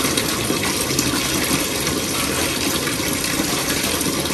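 Steaks frying in a pan, a steady sizzle with fine crackle throughout.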